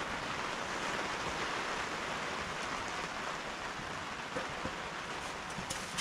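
Steady rain falling, an even hiss of many drops, with a sharp tick near the end.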